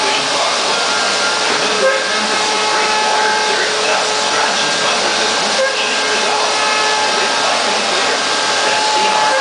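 4-axis CNC router milling stacked plywood: the spindle and cutter run steadily, a continuous cutting noise with several held whining tones through it.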